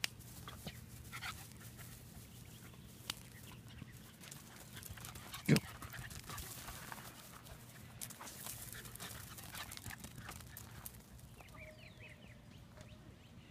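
Welsh Terrier puppy at play: one short loud bark about five and a half seconds in, with scattered light rustling and crunching of wood-chip mulch underfoot.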